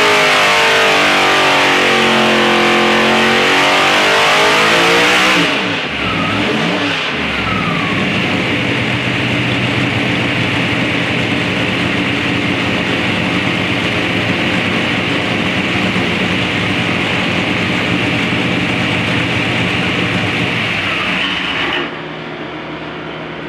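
526 cubic-inch big-block Chevy racing engine with a four-barrel carburetor running on a test stand, revving high and shifting in pitch. About five seconds in, the revs fall away and it settles into a steady, lower running speed. Near the end the sound drops abruptly to a quieter, steady noise.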